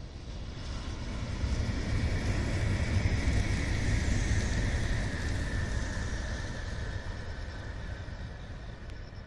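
Shinkansen high-speed train passing on the viaduct: a rushing roar that builds, peaks about three to four seconds in and slowly fades. A high whine runs through it and drops slightly in pitch as the train goes by.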